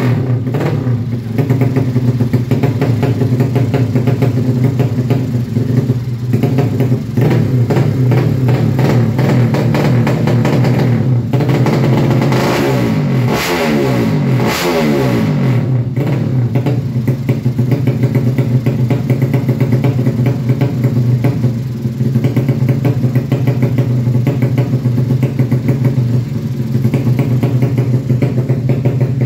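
Drag-built 'sleep engine' underbone motorcycle's 200 cc engine running fast at idle. Its throttle is blipped into quick revs several times in the first half, then it runs steadily.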